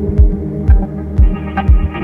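Background music: an electronic track with a deep kick drum about twice a second over sustained synth chords.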